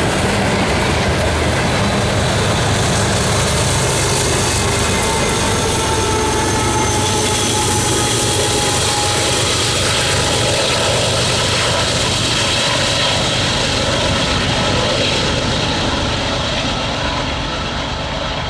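Loaded covered hopper cars of a freight train rolling past, then the rear distributed-power diesel locomotives, a BNSF unit and a Canadian Pacific GE AC4400CW, running under load as they push the train up a grade. The sound is steady and loud, easing a little near the end as the train moves away.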